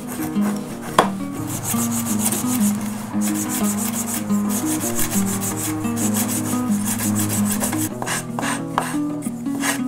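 Wooden tool handle rubbed back and forth by hand on a sanding sheet: a run of scratchy sanding strokes, with one sharp knock about a second in. Soft background music plays underneath.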